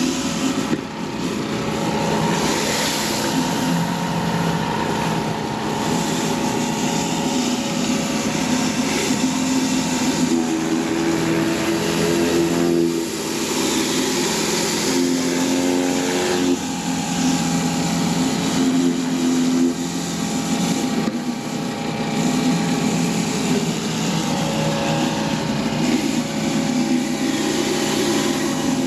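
Gas-engine pressure washer running steadily under load, with high-pressure water spray hissing on concrete; the engine note wavers slightly up and down.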